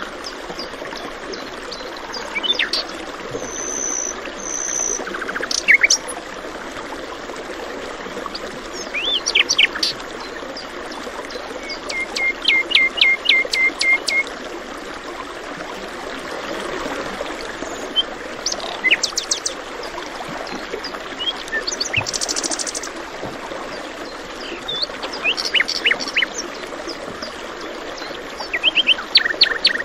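Songbirds chirping and trilling over the steady rush of running water; one bird gives a quick run of evenly repeated notes about twelve seconds in.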